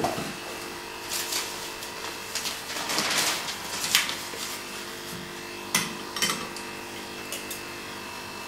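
Eating cereal from a bowl: a spoon clinking against the bowl a few times, with a rustling stretch about three seconds in, over a faint steady hum.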